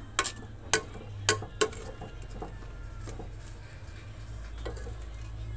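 A metal utensil clinks sharply against a metal cooking pot four times within about a second and a half, then a steady low hum carries on.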